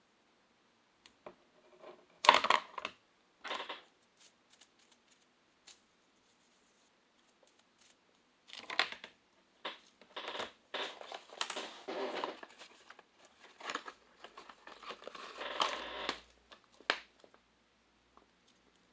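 Crinkling and scratching from plastic being handled, in irregular bursts: a short sharp burst about two seconds in, then a longer stretch of rustling from about eight to seventeen seconds.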